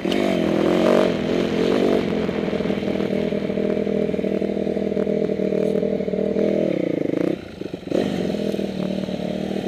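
Dirt bike engine revving and running under throttle along a rough trail, with rattling from the ride. The throttle closes about seven seconds in, the engine sound dropping for about half a second before it picks up again.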